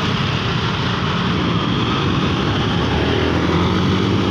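Steady road traffic: the engines and tyres of passing cars and motorcycles, with a motorcycle engine coming close past near the end.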